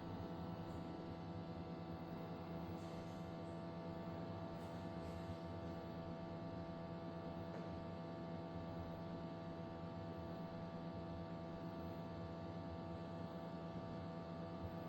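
Tascam disc player humming steadily with vibration while spinning an Ultra HD Blu-ray disc: a steady hum of several held tones that doesn't change. The uploader calls it a loud humming noise that comes when playing this disc.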